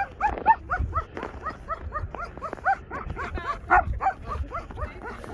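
A harnessed sled-dog team barking and yipping over and over, several short calls a second, as the dogs wait eagerly at the start of a run.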